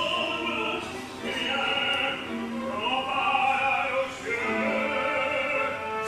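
Classical music with operatic singing: sustained sung notes over an accompaniment.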